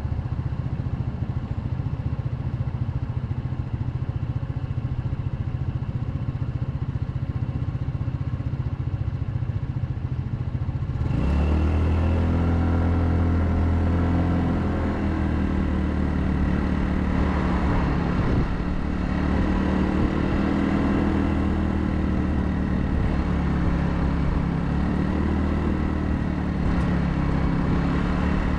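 Royal Alloy GT150 scooter's 150cc single-cylinder engine running on the road. About a third of the way in, the engine note suddenly gets louder and climbs as the throttle opens, then keeps running harder with small rises and falls in pitch.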